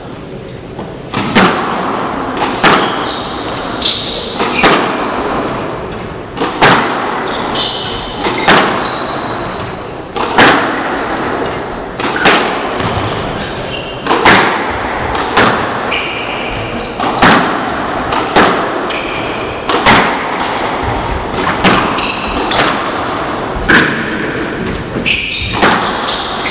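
Squash rally: the ball cracks off rackets and walls every second or two, with short high squeaks of court shoes on the hardwood floor between the shots.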